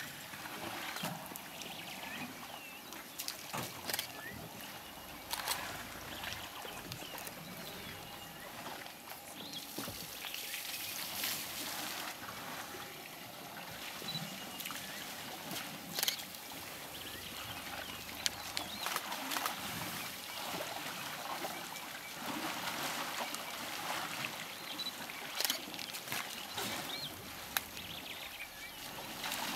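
African elephants drinking at a muddy waterhole: water trickling and splashing as their trunks draw it up and pour it into their mouths, with scattered short splashes and knocks.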